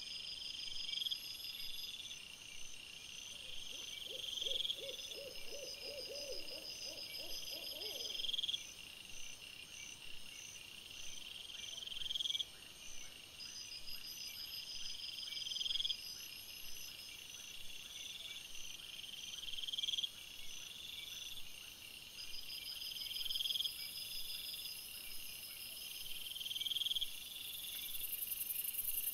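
Night chorus of insects: high calls that swell and cut off sharply every three to four seconds, with faster trilling above them. A short, low, pulsed croaking call comes about four seconds in.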